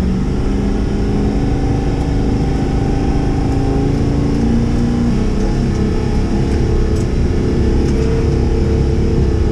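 Chevy square-body truck's swapped 6.0-litre LS V8 driving under load in four-wheel drive, the engine note rising and falling with the throttle, with a step down in pitch about halfway through.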